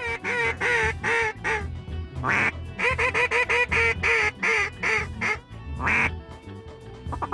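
Mallard duck call blown in a run of loud, evenly spaced hen quacks, a calling sequence to turn incoming ducks. Background music plays underneath.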